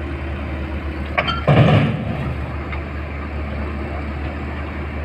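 Tata Hitachi tracked excavator's diesel engine running steadily as the machine works its way down off a trailer. About a second and a half in there is one short, loud, heavy thud.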